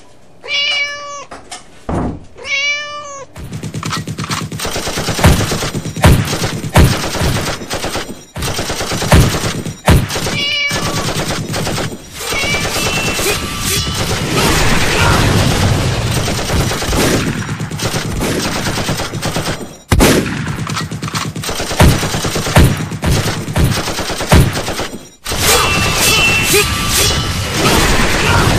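A cat meows twice, then a long, loud racket of crashing and banging with many sharp hits breaks out: a staged off-screen fight with the cat.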